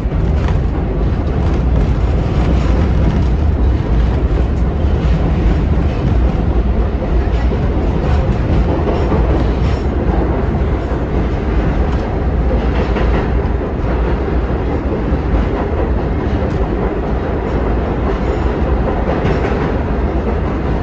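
Vintage subway train running on the rails: steady loud rumble with scattered clicks from the wheels on the track.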